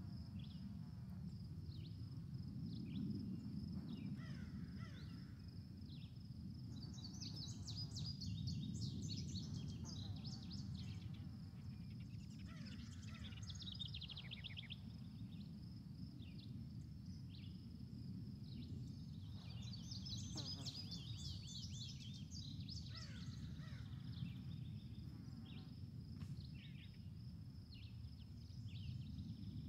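Birds chirping and trilling in two clusters, about a third of the way in and again about two-thirds in, over a steady high insect-like buzz and a low rumble.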